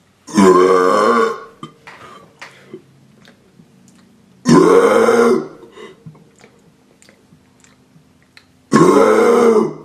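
A person burping on purpose: three long, loud burps about four seconds apart, each lasting about a second with a pitch that rises and then falls.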